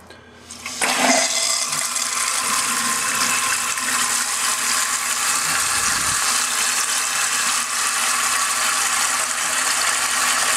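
Toilet-tank fill valve (a plastic float-and-rod ballcock) hissing as the water supply is turned on and water rushes into the tank. It starts suddenly about a second in and then runs steadily.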